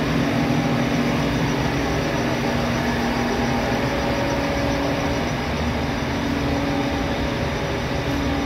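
Atlas Copco ZT-series oil-free rotary screw air compressor running, a loud, steady mechanical hum with a low drone.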